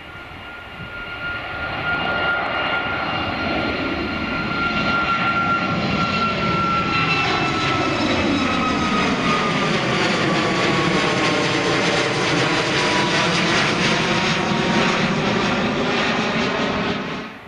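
Ryanair Boeing 737's twin turbofan engines at climb thrust as the airliner climbs away: a loud jet rush with a high fan whine that slowly falls in pitch. The sound builds over the first two seconds and cuts off abruptly near the end.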